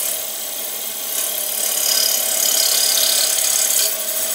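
Bowl gouge cutting a spinning wooden bowl blank on a wood lathe in a pull cut, shavings coming off in a steady high shearing noise that grows louder and brighter from about a second in until just before the end. A steady hum runs underneath.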